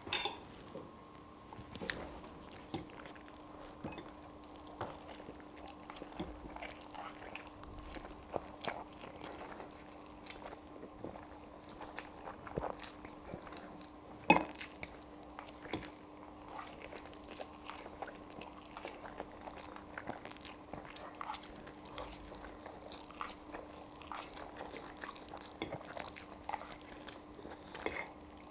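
Close-miked fast eating of spaghetti carbonara: chewing with many short, sharp mouth sounds, the loudest about halfway through, over a faint steady hum.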